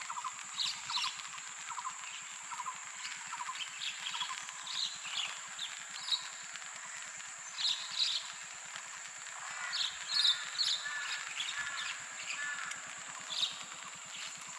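Forest ambience: a steady high-pitched insect drone with many short bird calls scattered throughout, and a quick series of repeated lower notes in the first couple of seconds.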